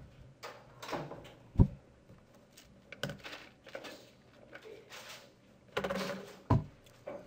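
Room noise of a class working at their desks: a few dull thumps, about a second and a half in and again near the end, among lighter knocks and rustling.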